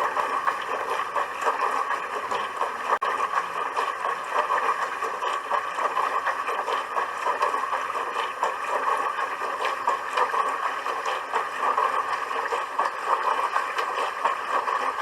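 Dishwasher in its wash cycle, water spraying inside the tub: a steady rushing splash that flutters rapidly and unevenly.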